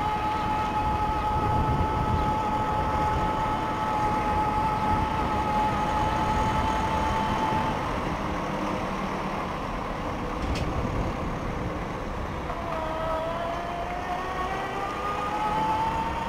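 Dillenger Cheetah Explorer folding e-bike's electric motor whining steadily under throttle, over wind and road rumble. The whine stops about halfway through as the bike coasts round a corner, then returns a few seconds later, rising in pitch as the bike picks up speed again.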